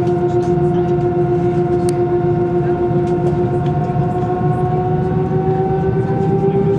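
Airbus A321 jet engines heard from inside the cabin over the wing while taxiing: a steady two-tone whine over a low rumble. The whine creeps up in pitch near the end as the engines speed up.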